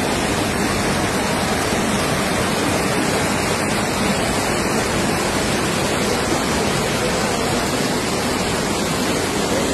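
Muddy floodwater rushing fast down a flooded street, a steady loud wash of turbulent water with no breaks.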